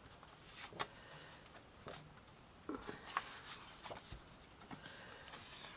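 Faint, scattered rustles and light taps of paper and card pieces being handled and set down.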